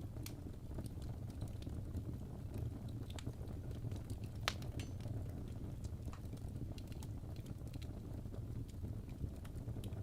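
Wood fire burning in a fireplace: a steady low rumble of flames with irregular crackles and snaps from the logs, the sharpest pop about four and a half seconds in.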